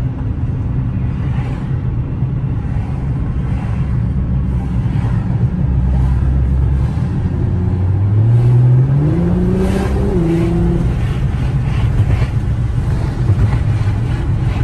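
2009 Nissan GT-R's twin-turbo V6 heard from inside the cabin while driving, over steady road noise. About seven seconds in, the engine note rises as the car accelerates, then drops back about ten seconds in.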